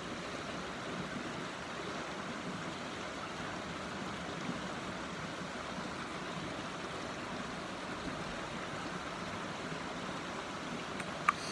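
Steady rushing of creek water, with one sharp click near the end.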